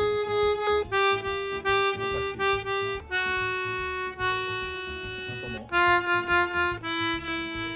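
Button accordion's treble reeds sounding single held notes one after another, stepping down in pitch, one note pressed several times in quick succession near the start. The notes are played to compare reeds: those whose valves have not yet been redone give an odd sound, while the redone one sounds normal.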